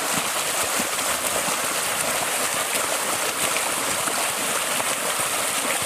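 Muddy water churning and splashing steadily as several people kick and crawl through a flooded pit.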